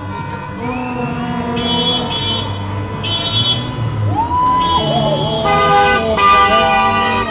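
Car horns honking in about five short blasts in celebration, over the running of passing cars; about four seconds in, a higher horn note rises, holds and then wavers.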